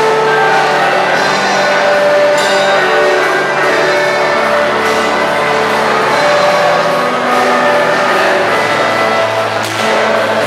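Live worship band playing a song, with acoustic guitar, drums and keyboard, and voices singing.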